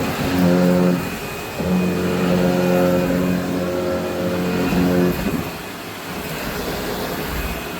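Vacuum cleaner running with a steady high motor whine, picking up glitter. A lower steady hum comes in over it twice: briefly about half a second in, then from about a second and a half to five seconds.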